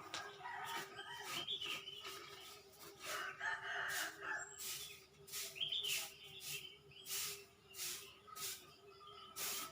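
Birds chirping and calling in a dense mix of short sharp chirps, with a rooster crowing among them. A steady low hum runs underneath.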